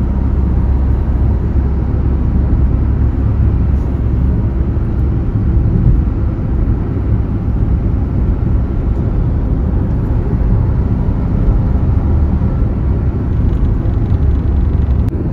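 Steady low rumble of a car driving at highway speed, engine and tyre-on-road noise heard inside the cabin.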